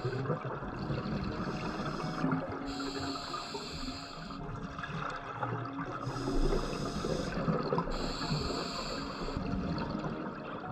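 Underwater scuba sound: a diver breathing through a regulator, with hissing stretches of a second or two coming and going every few seconds over a steady rush of water.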